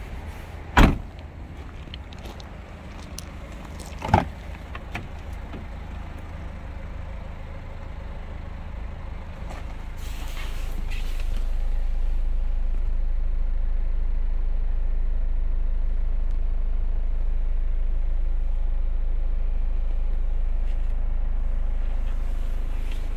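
Two sharp clicks of a car's interior latch or handle being worked, the first about a second in and the louder of the two, the second about four seconds in. About ten seconds in a short burst is followed by a steady low rumble: the car's engine running at idle.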